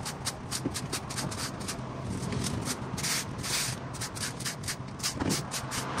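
Quick, regular scraping strokes, about four or five a second, of a hand tool clearing debris off pavement, over a steady low hum of traffic.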